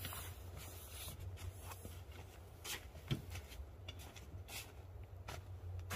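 Rustling and handling noise as a tarp and its line are adjusted, with scattered short rustles and one sharper knock about three seconds in, over a steady low hum.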